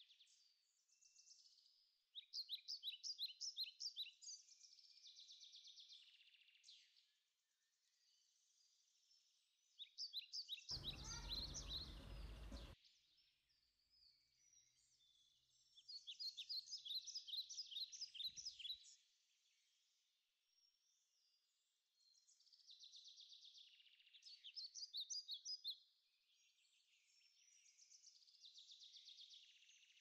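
Faint outdoor birdsong: phrases of rapid, high, trilled notes repeated every few seconds. A short rush of noise, like wind on the microphone, breaks in for about two seconds around the middle.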